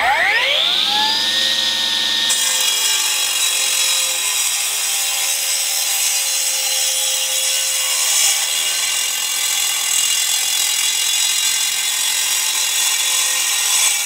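Milwaukee M18 Fuel 9-inch cordless cutoff saw spinning up with a rising whine, then wet-cutting into a concrete block with a segmented diamond blade, a steady loud cutting noise.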